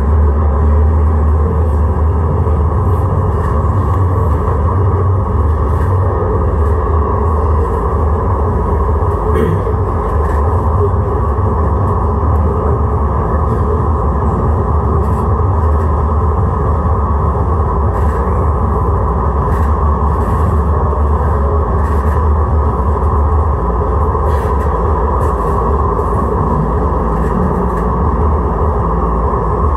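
Steady low hum and rumble from a Siemens-Duewag U2 light-rail car, even in level with no rise or fall in pitch.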